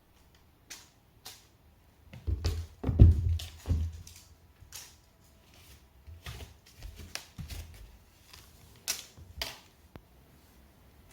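A cat playing with a toy: irregular taps, scuffs and clicks, with a cluster of heavier thumps about two to four seconds in.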